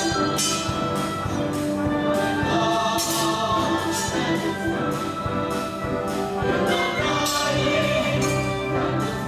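Orchestral music for a stage musical: held brass and ensemble notes under a run of sharp, hissing accents that recur every second or so.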